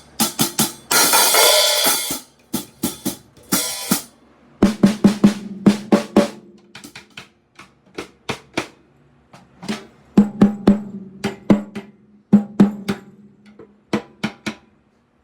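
Drum kit played in short phrases to check its tone: groups of single strokes and quick fills with pauses between them, and a long bright crash about a second in. After some of the hits the drums ring on with a low pitched tone.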